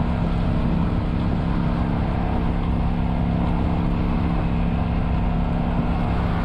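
Kawasaki Vulcan 900's V-twin engine running steadily at constant cruising speed, under a rushing noise of wind and road.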